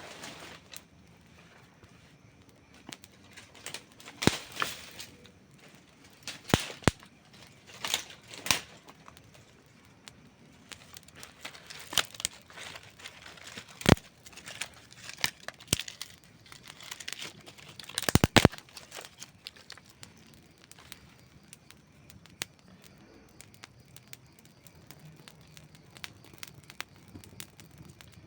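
Wood campfire burning and crackling: irregular sharp pops and snaps over a low hiss, with a loud pop about fourteen seconds in and a quick cluster of snaps around eighteen seconds.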